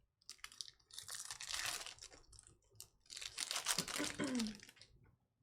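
Crinkling and rustling of plastic or foil wrappers and trading cards being handled, in two spells of about two seconds each.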